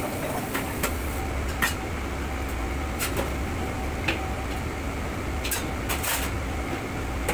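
Commercial kitchen noise: a steady low rumble, with scattered sharp clinks and clatters of metal cookware and utensils.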